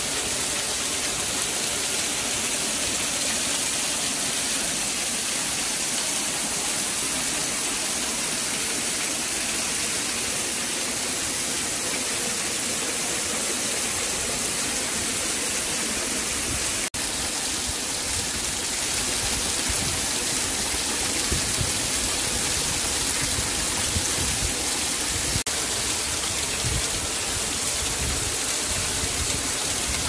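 Waterfall close by: a steady hiss of falling water and spray splashing onto rock, briefly cut off about halfway through.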